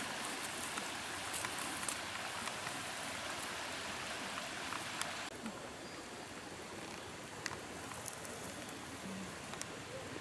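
Steady hiss of running water from a flowing river, a little quieter from about five seconds in, with a few faint ticks.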